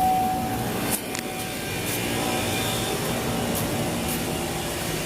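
A 2015 Chevrolet Silverado 2500's engine cranking steadily on the starter without catching, a crank-no-start: the fuel system has no pressure.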